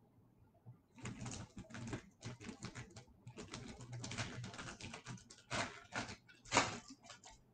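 Foil wrapper of an O-Pee-Chee Platinum hockey card pack crinkling and tearing as it is ripped open by hand. It starts about a second in as a continuous crackly rustle, with two sharper, louder rips near the end.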